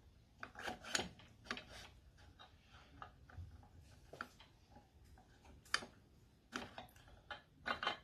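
Faint, scattered metallic clicks and scrapes as the steel shift rail is worked through the fifth/reverse shift fork of a Tremec T45 transmission by hand, with a cluster of clicks about a second in and more near the end.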